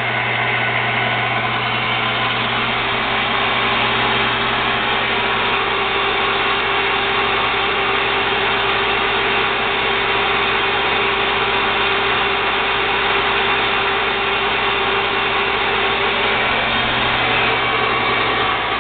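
TURNPRO 14 x 40 inch metal lathe running under power, a steady motor hum with a constant whine that does not change.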